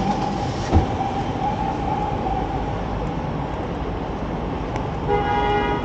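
City street traffic on a rain-wet avenue: a steady hiss of tyres and engines. A steady high whine runs through the first half, there is a single knock about a second in, and a short pitched tone with overtones sounds near the end.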